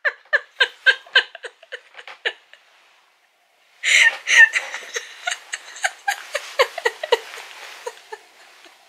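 A woman laughing hard in quick repeated bursts. The laughter breaks off into a second or so of silence about two and a half seconds in, then starts again.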